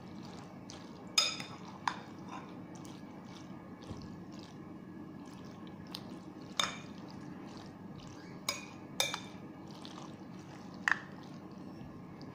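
A spoon stirring creamy macaroni salad in a glass bowl: soft wet squelching of the dressing, broken by a few sharp clinks of the spoon against the glass, the loudest about a second in.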